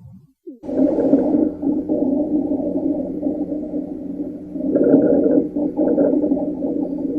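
Recorded chest auscultation: a continuous, musical lung sound, several steady tones held together like a polyphonic wheeze, starting after a brief silence and swelling about five seconds in. This is an adventitious sound typical of narrowed airways.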